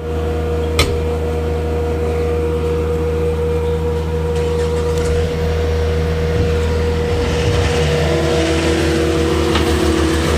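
Heavy machinery engine running steadily under load, with a constant whine over it. A single click comes about a second in, and a second, lower whine joins about eight seconds in.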